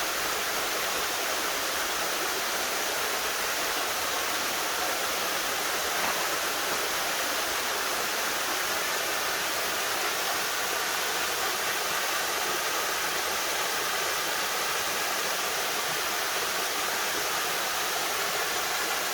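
Small waterfall cascading steadily: an even, continuous rush of falling water.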